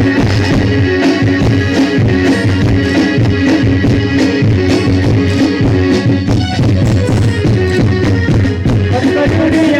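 Instrumental break in a devotional folk song: music with held notes over a steady percussion beat.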